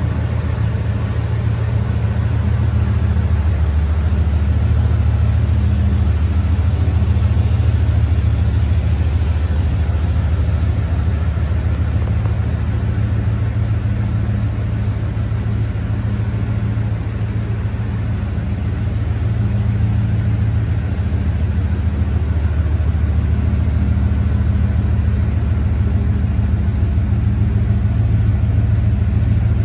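A 460 V8 pickup engine idling steadily: a low, even rumble that gets slightly softer midway and louder again near the end.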